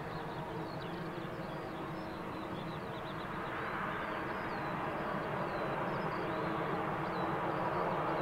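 Short SC7 Skyvan 3's twin Garrett TPE331 turboprops and propellers running steadily as the aircraft rolls along the runway after landing, growing a little louder near the end. Small birds chirp throughout.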